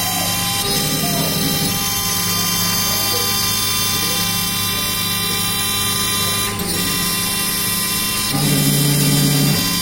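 CNC router cutting MDF: the spindle runs with a steady whine while a lower motor hum underneath shifts in pitch briefly about a second in, then grows louder for about a second near the end.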